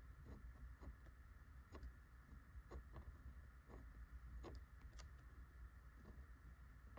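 Near silence: soft, irregular little ticks and scratches of a fountain pen nib moving over paper during slow cursive writing, over a faint steady room hum.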